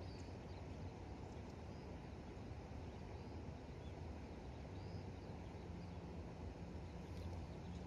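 Faint outdoor ambience by the water: a steady low rumble with a few faint, short, high bird chirps.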